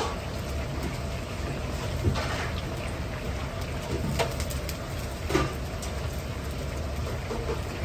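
Starch-coated chicken thigh pieces deep-frying in a large wok of oil, sizzling and bubbling steadily over the low roar of a gas wok burner. A metal ladle stirring the oil adds a few brief scrapes and knocks, about two, four and five seconds in.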